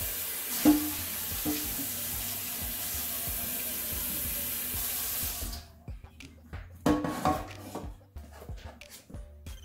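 Kitchen faucet running into a pot to fill it with water, a steady rush that stops abruptly about five and a half seconds in when the tap is shut off. A few short knocks follow near the end.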